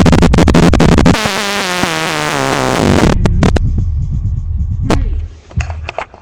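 Bass-heavy electronic music played loud through a Logitech Z-623 2.1 speaker system with subwoofer. It starts as a dense stutter of hits, turns into a wobbling synth line about a second in, and runs on as deep bass with a few sharp hits. It drops in level near the end.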